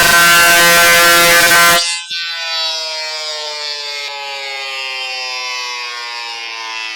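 A siren sounding with a loud, harsh, steady buzzing tone that cuts off abruptly about two seconds in. Its tone then slowly falls in pitch as the siren winds down.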